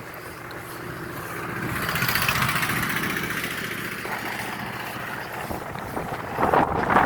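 A vehicle passing by swells to its loudest about two seconds in and fades away. Near the end, wind buffets the microphone in gusts.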